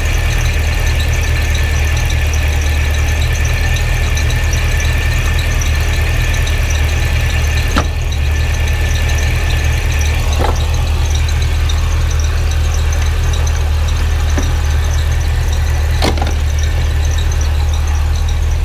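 Supercharged 6.2-litre V8 of a 2009 Cadillac CTS-V running steadily, with a high whine over a low drone, while the new intercooler coolant pump is being primed; a few light clicks, one about eight seconds in and another near the end.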